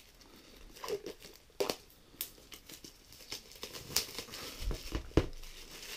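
Clear plastic shrink-wrap being peeled off a phone box and crinkling in the hand, with a couple of soft knocks from the box being handled about five seconds in.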